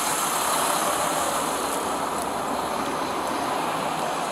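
Fire truck's engine idling steadily close by, easing off slightly as the camera moves away from it.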